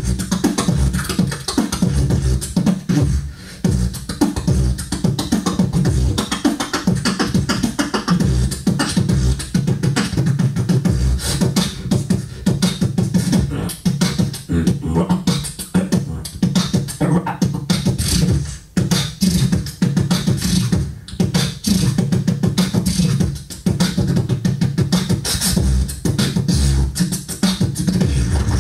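Solo beatboxing into a handheld microphone: a continuous, fast rhythm of mouth-made percussion with a heavy low bass and sharp clicks, with only a few brief breaks.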